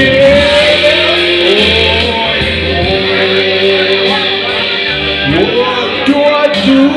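A man singing karaoke into a handheld microphone over a recorded backing track with guitar, holding long notes.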